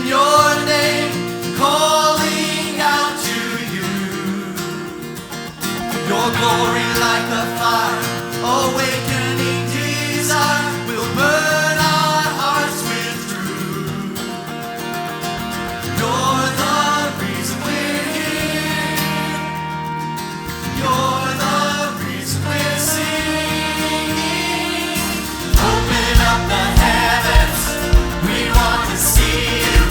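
Choir singing a worship song with orchestral and band accompaniment; about 25 seconds in, a steady drum beat enters and the music grows louder.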